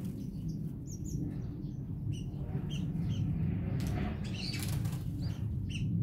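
Small songbirds chirping in short scattered calls, with a quick flurry of wingbeats a little past the middle as a bird flies in or off. A steady low rumble runs underneath.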